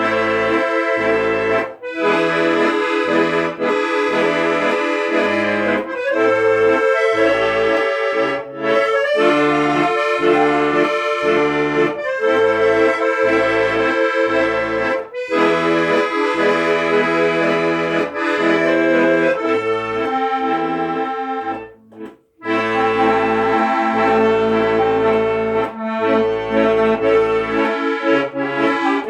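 Instrumental music: a melody in sustained chords over a separate bass accompaniment, breaking off briefly about three quarters of the way through.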